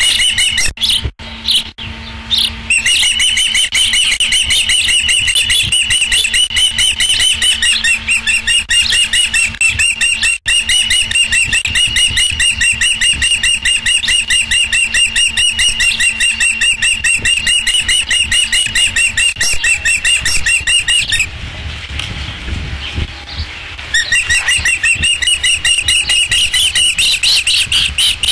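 Ospreys calling at the nest: a long series of rapid, repeated high chirps, several a second. The calls break off for about three seconds near the end, leaving only a low rumble, then start up again.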